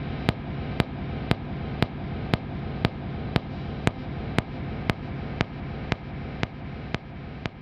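Serge modular synthesizer playing a dense, hissing drone with low steady tones, cut through by sharp, evenly spaced clicks about twice a second. Near the end it begins to fade out.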